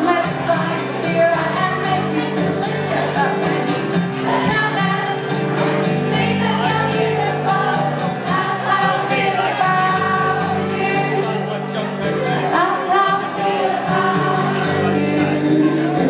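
Live pop music: a woman singing into a microphone over a steady instrumental accompaniment, heard from among the audience.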